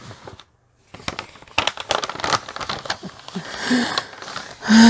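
Plastic protective film on a rolled diamond-painting canvas crinkling and crackling in irregular bursts as the canvas is handled and pushed flat. A short hummed vocal sound comes near the end.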